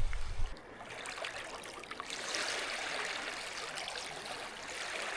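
Lake water sloshing and trickling around a canoe paddle, swelling with each slow stroke a few seconds apart. Low wind rumble on the microphone cuts off about half a second in.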